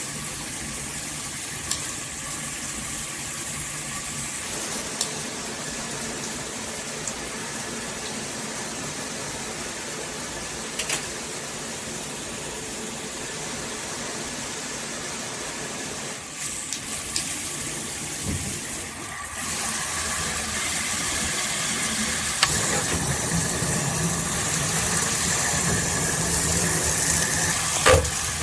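Handheld shower head spraying water in a steady hiss, with a few faint clicks. About 17 seconds in the sound shifts and then runs louder.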